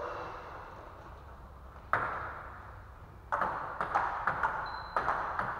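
Table tennis ball clicking off bats and the table: a single hit about two seconds in, then a quick rally from a little past three seconds, about three to four hits a second, each echoing in the hall.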